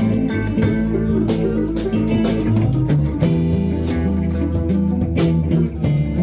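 Live blues band playing: guitars over a bass line, with drum hits marking a steady beat.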